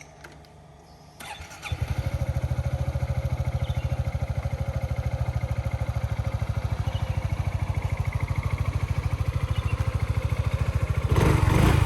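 Motorcycle engine starting about two seconds in, then idling with a steady, rapid, even putter; it gets louder near the end.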